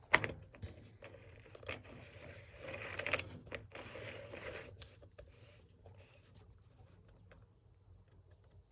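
Parts of a string trimmer's gear head and washer being handled and fitted onto the shaft: a sharp click just after the start, a couple of seconds of scraping and rattling, then a few light clicks.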